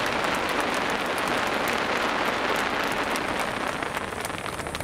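Large crowd applauding, a dense patter of clapping that thins out near the end.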